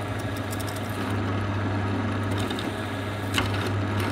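Drill press running, its twist bit boring a hole through an aluminium strip: a steady motor hum under the noise of the bit cutting the metal.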